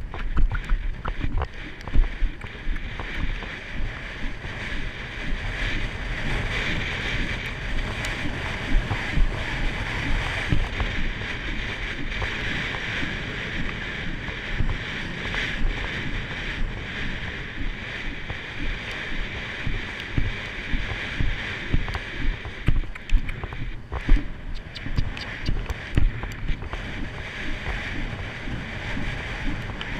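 A Haflinger horse cantering over grass and dirt: repeated hoof strikes and movement under a steady rush of wind on the microphone.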